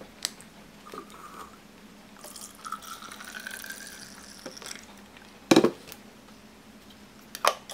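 Water poured from a metal bottle into a plastic tumbler, the pitch rising as the cup fills, after a few light clicks. Two loud knocks follow, the first about five and a half seconds in and the second near the end.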